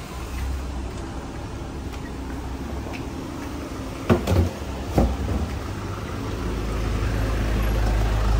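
Low, steady vehicle rumble with three sharp knocks about four to five seconds in; the rumble grows louder toward the end.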